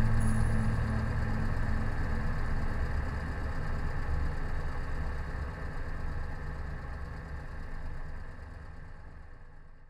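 An engine idling with an uneven low rumble, fading out to silence near the end.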